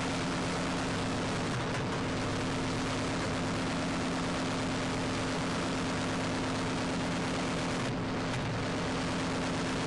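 Fishing trawler's engine running steadily: a constant low drone under an even hiss.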